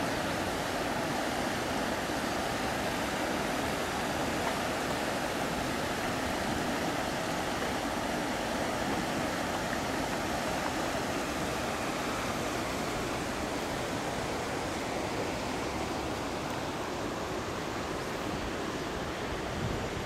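Steady rushing of river water: an even, continuous noise that holds at one level without pauses.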